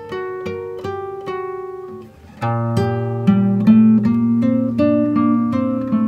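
Background music on acoustic guitar: single plucked notes in a steady run, a brief drop-out about two seconds in, then fuller, lower chords.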